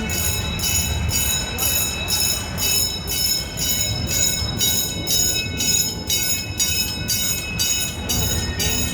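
Park railway train running, a steady low rumble of the cars under a high, ringing beat that repeats about twice a second.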